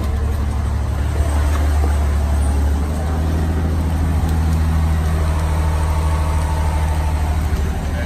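A 1991 Ford F-150's 4.9-liter inline-six idling steadily, a loud, even low hum whose tone shifts about three seconds in.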